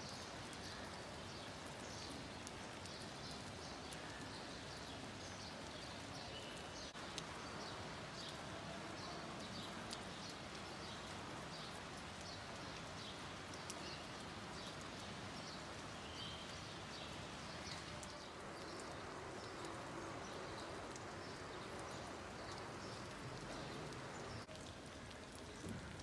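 Rain falling steadily: an even hiss with frequent short, high ticks scattered through it.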